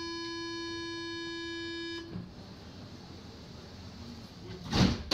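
Métro train's door-closing warning tone, one steady tone held until about two seconds in. Near the end the train's sliding doors shut with a loud bang.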